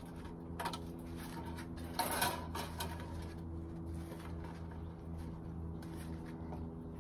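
Welded wire mesh being bent up by hand over a wooden 2x2: a few faint clicks and a brief scrape about two seconds in, over a steady low hum.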